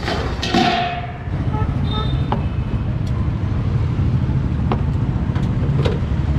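Steady low rumble of road traffic, with a short metallic scrape and clatter about half a second in as a stainless-steel lid is lifted, then a few light clinks of steel utensils and tins being set down.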